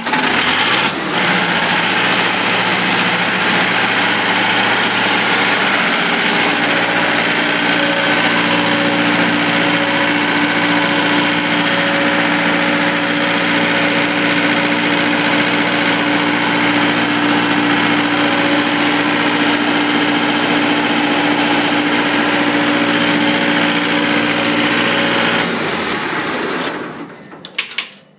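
Husqvarna FS 6600 diesel walk-behind concrete floor saw engine catching and running at a steady speed, then shut off and winding down to a stop near the end.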